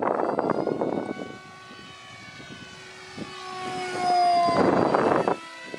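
Brushless electric motor and 5-inch propeller of a foam RC MiG-29 model whining in flight, the pitch sliding down as it passes. Loud bursts of rushing noise in the first second and again near the end.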